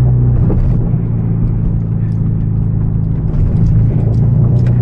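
Hyundai Genesis Coupe's turbocharged four-cylinder engine with an aftermarket exhaust, droning steadily at a constant pitch while the car cruises, heard with the windows down.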